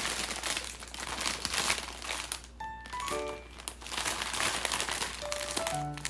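Plastic shopping bags and food packaging crinkling and rustling as they are handled, in two stretches with a short break about halfway, over light background music.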